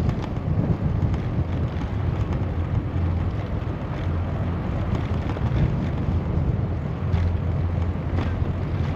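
Wind buffeting the microphone on a moving bicycle: a steady low rumble, with a few faint clicks.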